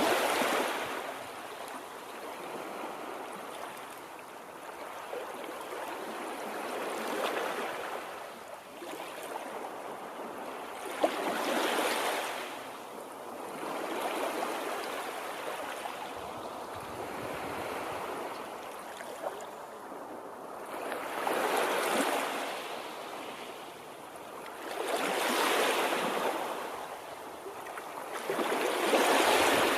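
Water washing in waves, a rushing hiss that swells and fades every few seconds.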